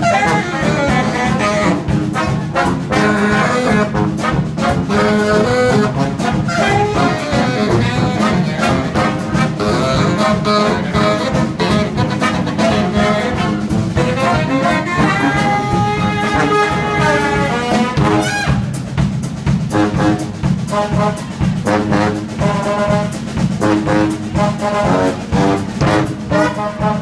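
Live brass band playing: trombone, saxophones and sousaphone over a drum kit with a steady beat. The horns hold long notes about halfway through, then play short repeated stabs.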